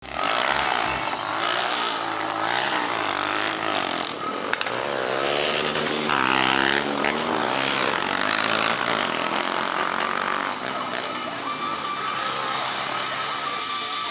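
Yamaha FZ single-cylinder motorcycle engines revving during wheelie stunts, the pitch rising and falling again and again.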